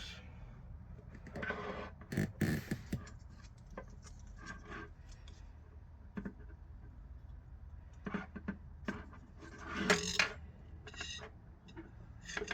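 Intermittent rubbing, rustling and light knocks of hands winding PTFE thread tape anti-clockwise onto a plumbing thread, with louder bursts of handling about two seconds in and near ten seconds.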